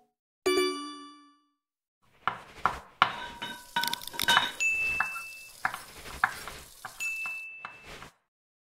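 A single bell-like notification chime, then about six seconds of edited kitchen sound effects: sizzling, with utensils clinking and knocking against pots and pans, stopping sharply near the end.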